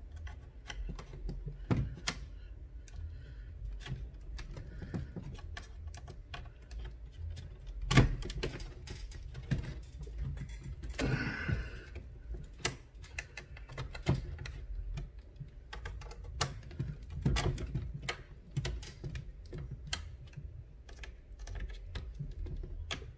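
Plastic pry tool working along the seam of an HP 15t laptop's bottom case, the case's plastic clips clicking and snapping loose irregularly, with one louder snap about eight seconds in.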